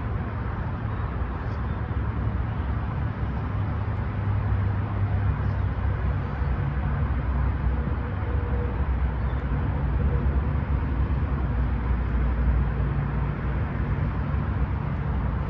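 Wind buffeting the microphone outdoors: a steady low rumble with a hiss above it, plus a few faint clicks.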